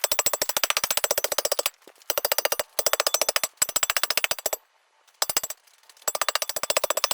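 A hand tamper pounding hard, dry clay soil: rapid, sharp knocks at about a dozen a second, in runs of one to two seconds with short pauses between.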